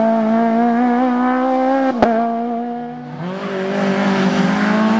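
Rally car engine held at high revs as the car pulls away, cut off by a sharp click about two seconds in. A second rally car's engine then comes up, getting louder with its revs climbing as it approaches.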